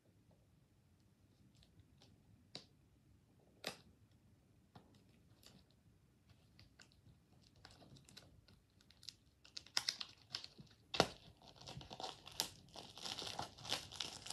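Packaging being torn and crinkled open as a Blu-ray is unwrapped: a few scattered light clicks and taps at first, then from about eight seconds in, dense crinkling and tearing that grows louder toward the end.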